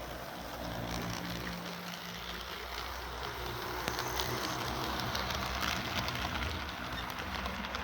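Model train running along the layout track: a steady rolling rattle of wheels on rail with a low hum underneath.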